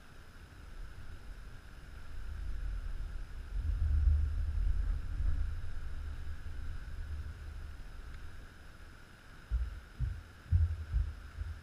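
Wind buffeting the camera's microphone: a low rumble that swells a couple of seconds in, then eases off. Near the end come four short low thumps.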